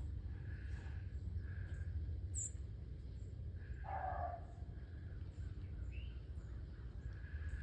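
Outdoor ambience: small birds giving short high chirps over a low steady rumble, with one short louder call about four seconds in.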